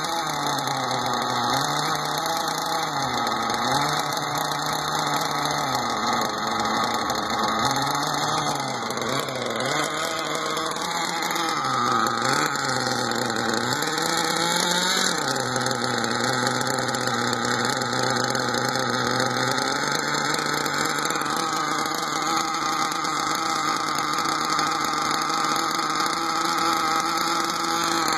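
Small .21 two-stroke nitro glow engine in an RC car running on its first start. Its speed repeatedly sags and picks back up over the first fifteen seconds or so, then settles into a steady idle.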